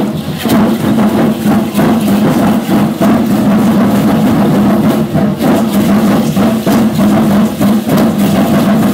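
Loud, steady fast drumming for an Aztec Concheros dance, with the rattle of the dancers' leg rattles (ayoyotes) over it.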